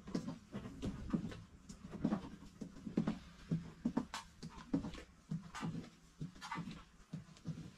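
Footsteps of someone walking down the aisle of an empty train carriage, about two steps a second, with soft thuds and clicks of handling noise.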